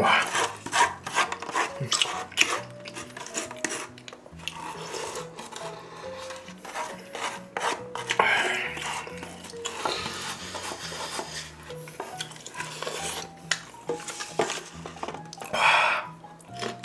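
Close-miked eating sounds: wooden chopsticks clicking and scraping inside a plastic noodle container, then slurping broth from the tipped-up container, with chewing toward the end.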